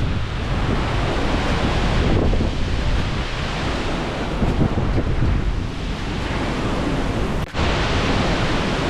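Strong wind gusting across the microphone: a loud, continuous rumbling rush that swells and eases, cutting out for an instant about seven and a half seconds in.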